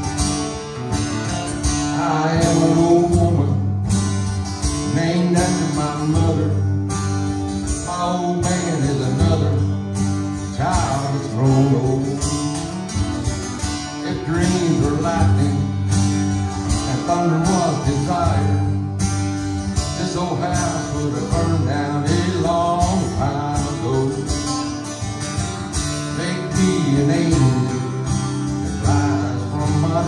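Acoustic guitars strumming a steady country song, with a harmonica playing a wavering melody line over the chords.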